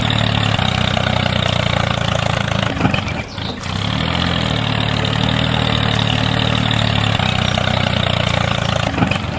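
Tractor engine running steadily at idle, dipping briefly about three seconds in.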